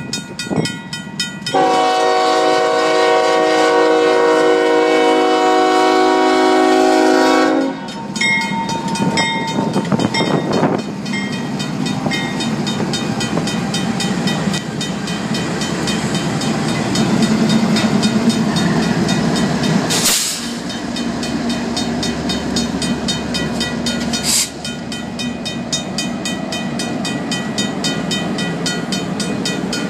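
Union Pacific freight locomotive horn sounding one long chord blast, from about two seconds in for some six seconds, as the train reaches the grade crossing. The locomotives and freight cars then rumble and clack past close by, with two sharp bangs, while the crossing's mechanical bell rings steadily throughout.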